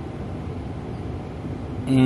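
Steady low background hum of room noise, with no clicks or knocks from the work. A man starts speaking right at the end.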